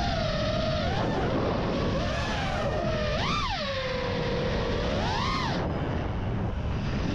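5-inch FPV freestyle quadcopter's brushless motors and propellers whining. The pitch swoops up sharply on throttle punches about three and five seconds in, then falls back, over a steady rushing noise.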